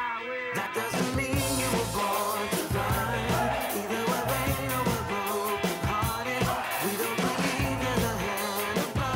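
Live rock music: a voice singing over electric guitar, bass and drums, with a brief drop right at the start.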